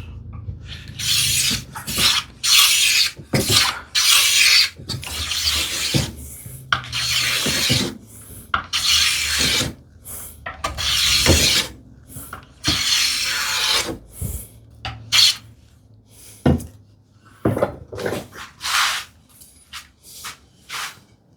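Wood rasp filing the end of a cherry tambour slat in a series of rasping strokes, about one a second, growing shorter and choppier near the end.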